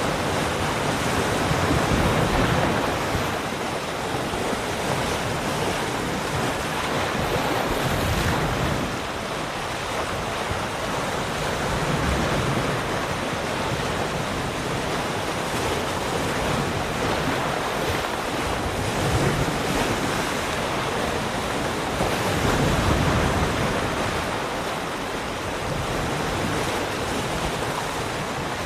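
Ocean surf: waves breaking and washing in a continuous rush that swells and eases every few seconds, with some wind noise on the microphone.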